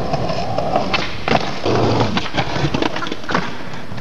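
Skateboard wheels rolling on concrete, with several sharp clacks of the board striking the ground.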